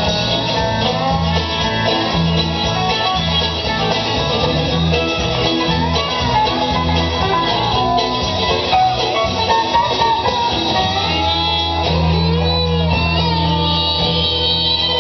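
Country-style music led by guitar, with a steady bass beat and sliding melody lines near the end.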